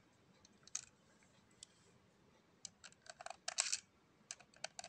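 Small metal clicks and short scrapes of a screwdriver working the screw that holds a hair clipper's blade set. There is one click early, then a quick run of clicks from about halfway through.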